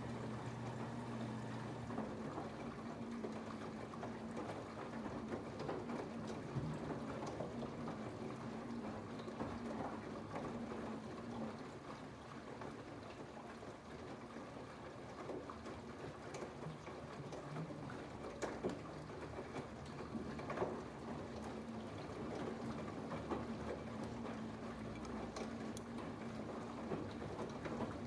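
Samsung 10.2 kg washing machine in its wash cycle: water and laundry sloshing irregularly in the drum as it agitates, over a steady low hum.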